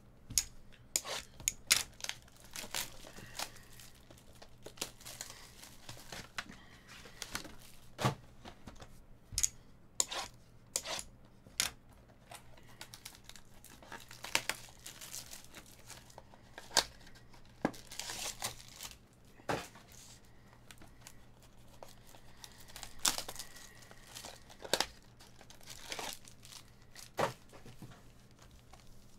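Plastic wrapping on sealed trading-card boxes and packs crinkling and tearing as they are opened by hand, in irregular sharp crackles with short pauses between them.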